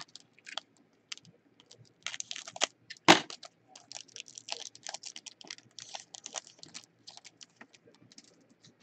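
Packaging and trading cards being handled: a run of crinkling, rustling and small clicks, with one loud sharp snap about three seconds in.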